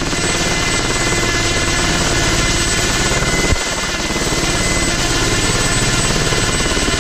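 Ultrasport 496 single-seat helicopter hovering close by, its engine and main rotor running steadily with a fast, even pulsing. A single sharp knock sounds about halfway through.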